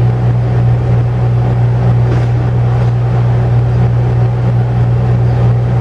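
Air conditioner running with a steady, really loud low hum.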